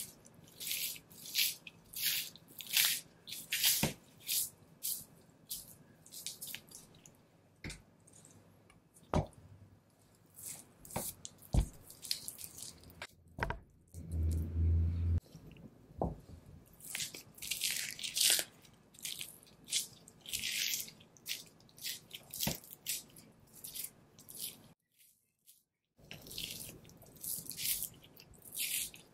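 Wet, sticky peeling and tearing of fat and sinew being stripped from a raw wagyu beef knuckle, in many short rasping pulls with a few sharp clicks. A low dull thud comes about fourteen seconds in, and the sound drops out completely for about a second near twenty-five seconds.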